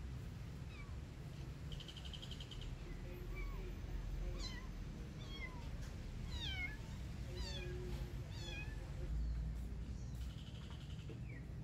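A kitten mewing repeatedly: short, high-pitched calls that fall in pitch, coming several in quick succession through the middle.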